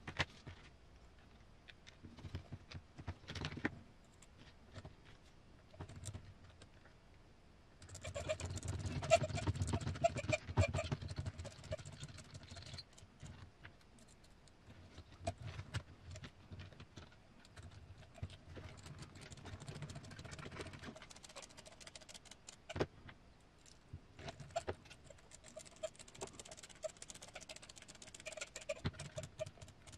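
Small plastic RC roof-rack parts being handled and fitted, with small screws driven by a hand screwdriver: scattered light clicks, taps and rattles. There are two busier stretches of rustling and rapid clicking, one about eight seconds in and one near the end.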